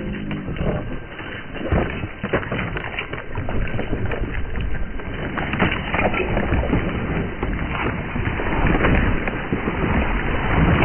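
A domestic goose beating its wings hard against a kayak angler, its wingbeats slapping and splashing the river water, with wind buffeting the microphone. A heavy splash near the end, as the angler is taken down toward the water.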